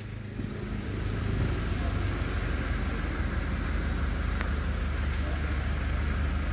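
Steady low engine rumble of a nearby motor vehicle, with a brief faint high-pitched squeak about four and a half seconds in.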